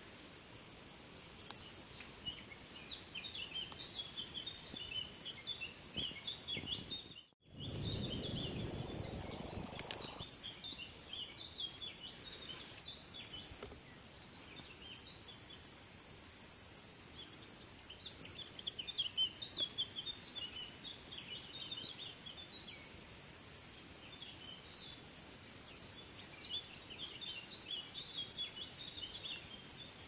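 Small songbirds twittering in rapid high chirps, in bouts of several seconds with short lulls between. About seven seconds in, the sound drops out for a moment and is followed by a couple of seconds of low rustling noise.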